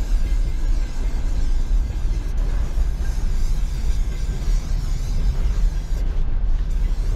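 Aerosol spray-paint can hissing as chrome paint is sprayed onto the steel side of a freight hopper car, over a loud, constant low rumble.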